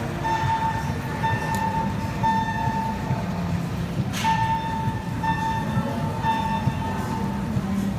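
Building fire alarm sounding during a test: a horn tone blaring in repeated short blasts.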